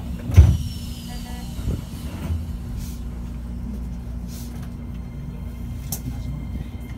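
Interior running sound of a Shin-Keisei N800 electric commuter train: a steady low rumble of the car on the rails with a thin, steady high whine. A loud heavy thump comes about half a second in, followed by a short falling high tone and a couple of lighter knocks.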